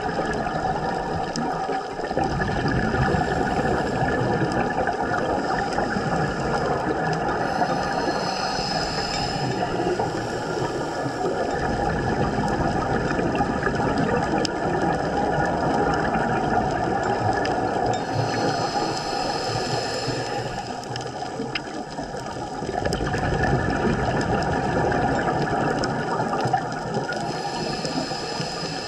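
Scuba diver breathing through a regulator, heard underwater through a GoPro housing: a continuous rush and rumble of exhaled bubbles, with a higher hiss that swells about every ten seconds.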